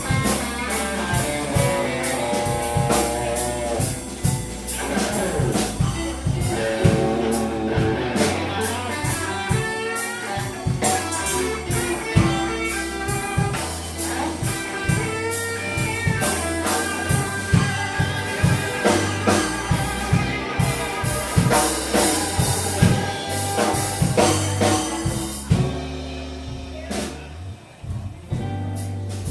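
Live blues band playing an instrumental break of a slow blues, an electric guitar lead with bending notes over bass and a drum kit. The band drops quieter near the end.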